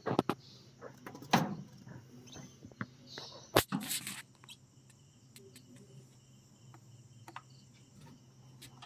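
Knocks and rustles from a wooden lovebird nest box being opened and handled, a few loud ones in the first four seconds and the sharpest about three and a half seconds in, then only faint clicks over a low hum.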